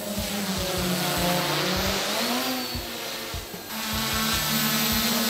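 SK450 quadcopter's brushless motors and 8045 propellers buzzing in flight, the pitch rising and falling as the throttle changes, with a sudden change in tone about two-thirds through as the quad hovers close.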